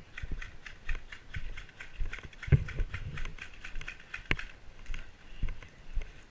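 Footsteps of an airsoft player on the move, about two a second, with the clatter of rifle and gear jostling at each step. A sharper click comes a little over four seconds in.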